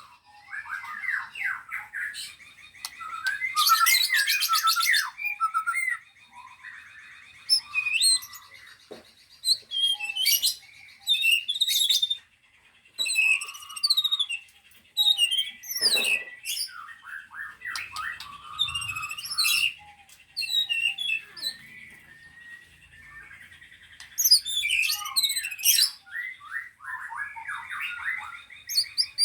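Several caged songbirds singing at once, their songs overlapping in a mix of fast trills, sharp chirps and whistled phrases that come in bursts with short pauses.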